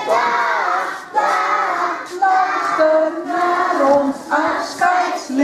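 A group of young children singing together, phrase by phrase with held notes.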